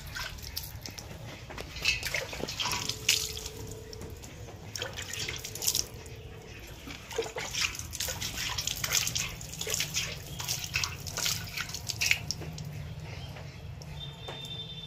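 Water splashing and dripping in a steel bucket as hands are washed in it, in irregular splashes: washing up before milking a cow by hand.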